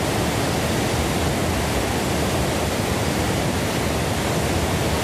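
Water rushing steadily out of a hydroelectric dam's open outlet gates into a concrete discharge channel, a loud, even roar of falling water.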